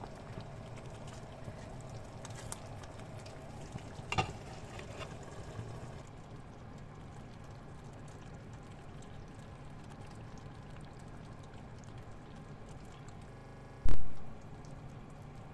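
Creamy chicken curry simmering in a nonstick frying pan, with a spoon stirring and scraping through the sauce in the first few seconds and a knock about four seconds in. Near the end comes a single loud, low thump.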